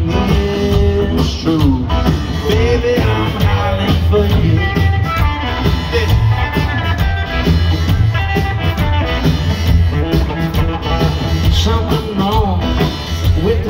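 Live rock band playing loud and steady: electric guitar over bass and drums, heard through the concert sound system.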